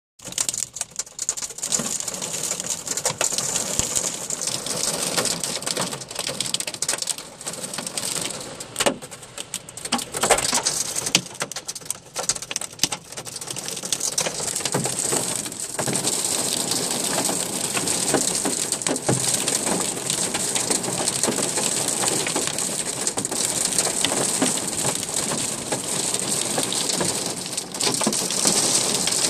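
Heavy rain pouring down, with a dense patter of drops hitting hard surfaces close by. Uneven at first, it settles into a steadier, denser downpour about halfway through.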